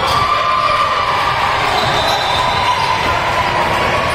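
A basketball being dribbled on a gym court during a game, over a steady background of gym and crowd noise.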